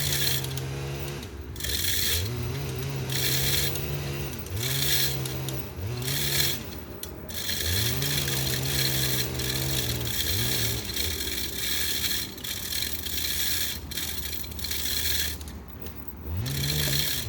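Two-stroke chainsaw revved up to full throttle and cutting eucalyptus wood, about five times, dropping back toward idle in between, with a long cut near the middle.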